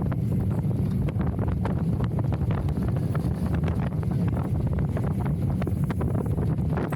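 Wind buffeting the microphone over the rattle of a Vekoma family launch coaster train running along its track, a steady low rush with many quick clicks and knocks.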